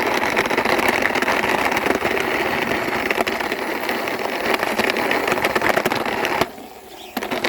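Toy tourist bus pushed along by hand, its wheels rolling and rattling continuously. It stops briefly about a second before the end, then starts again.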